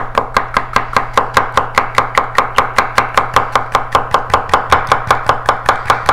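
Nakiri vegetable knife rapidly slicing a bell pepper into strips on a wooden cutting board: a steady, even run of about six blade strikes on the board a second. The blade bites through the pepper's skin without bouncing, the sign of a sharp edge.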